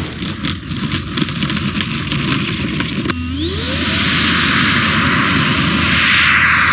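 Electric ducted fan of a Freewing Avanti RC jet (WeMoTec 80 mm, 11-blade fan) throttled up for takeoff. After a low rumble, about three seconds in its whine rises sharply over a second to a steady high whine over a loud rush of air.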